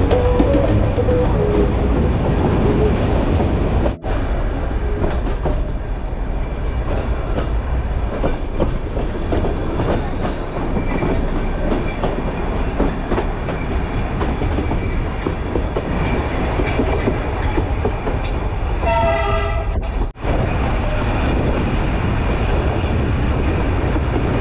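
Nilgiri Mountain Railway toy train running, heard from inside a passenger coach: a steady rumble and rattle of wheels on rails. A short horn blast comes near the end.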